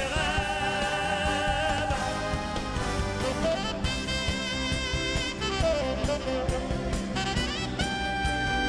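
Live band music: a male singer holds a long note with vibrato. Then a saxophone takes a solo over the band, sliding up and down between long held notes.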